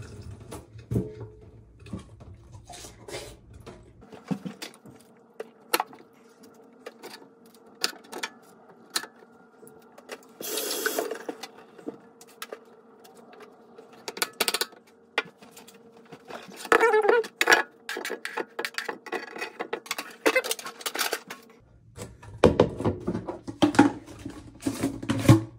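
Kitchen knife cutting strawberries on a thin plastic cutting board, in irregular sharp taps. Near the end, fruit knocks into a plastic blender cup.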